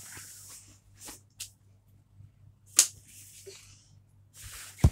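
Faint scattered rustles and short clicks, with one sharper click a little under three seconds in.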